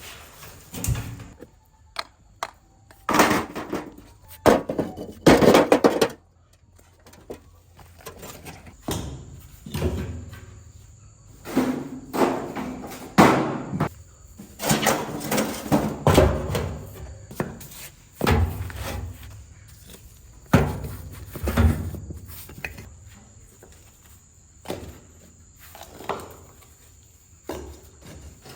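Irregular knocks, thumps and scrapes of materials being handled by hand, a couple of dozen separate impacts at uneven intervals.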